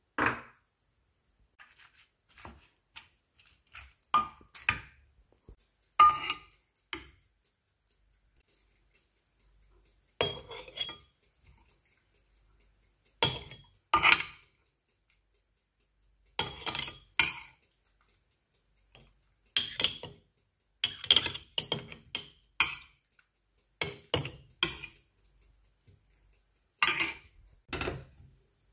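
Kitchenware being handled: a spoon clinking against a glass baking dish and glass jars, in many short separate knocks and clinks with quiet gaps between them.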